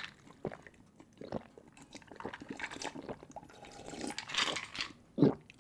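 Close-miked sips and swallows of a fizzy drink. Small wet clicks, with a soft hissing swell about four seconds in and a sharper sound near the end.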